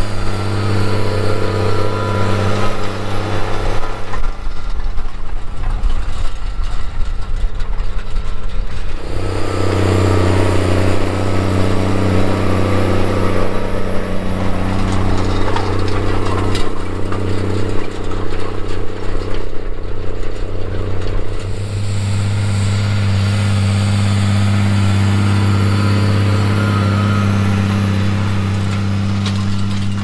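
Case IH tractor's diesel engine working steadily under load as it pulls a field cultivator through dry soil.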